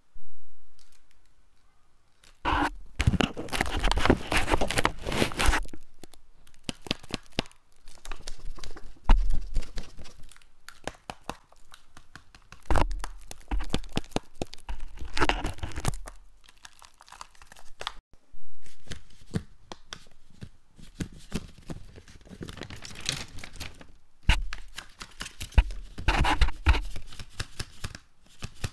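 Folded-paper dragon puppets rustled and crinkled right against a microphone, in irregular bursts of crackling with many sharp paper clicks.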